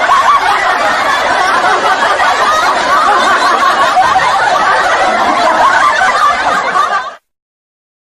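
Laugh-track laughter from many people, steady and loud, cutting off suddenly about seven seconds in.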